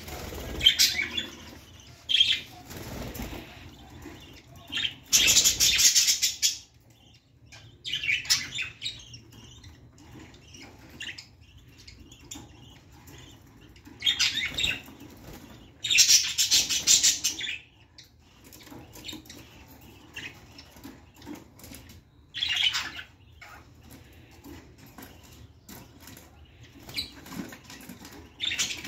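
Caged budgerigars fluttering their wings in short noisy bursts against the wire, about eight times, the longest about five and sixteen seconds in, with bird chirps in between.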